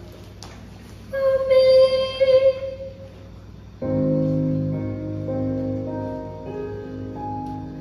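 A girl's voice holds one long sung note with vibrato. About four seconds in, a recorded backing track starts slow, sustained keyboard chords.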